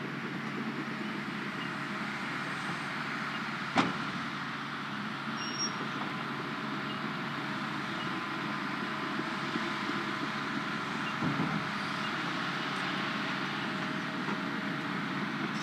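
Hitachi hydraulic excavator's diesel engine running steadily as the machine works its boom, with one sharp knock about four seconds in.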